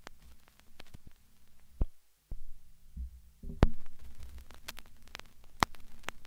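Glitch sound effect: a low electrical hum broken by sharp crackling clicks. It cuts out briefly about two seconds in, then comes back louder with bigger static pops.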